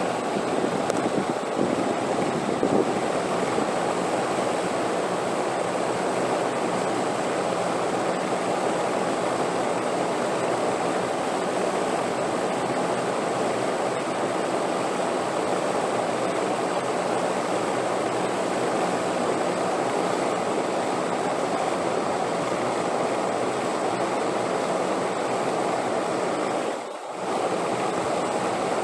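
Steady wind sound: an even rushing noise, strongest in the lower middle range. Near the end it dips briefly, then resumes unchanged.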